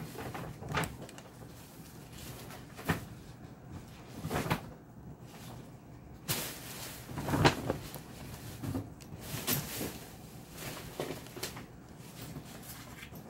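Handbags and shopping bags being shifted about by hand: a string of knocks and bumps mixed with rustling, the loudest stretch of rustling about halfway through.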